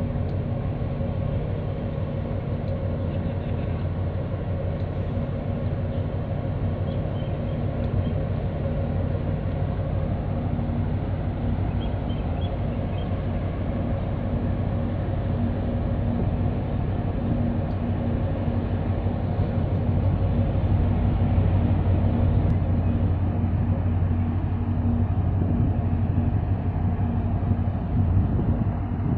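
Steady low drone of a large container ship's engines as it passes close by, a deep hum with a few held tones over a hiss, getting a little louder in the second half.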